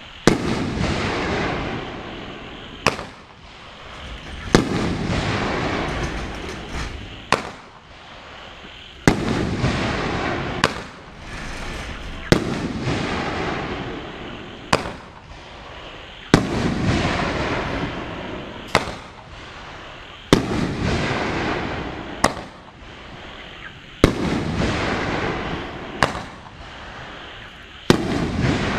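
Firehawk 'Beast' 500-gram consumer firework repeater cake firing shell after shell: a sharp bang about every two seconds, each followed by a few seconds of crackling, hissing brocade and glitter that fades before the next bang.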